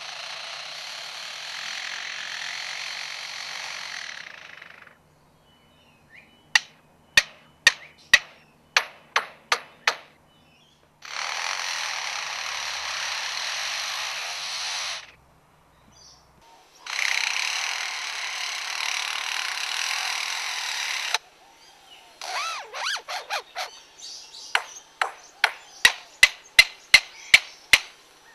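A lyrebird mimicking construction work: three long stretches of buzzing, power-tool-like whirring, alternating with two runs of sharp hammer-like knocks.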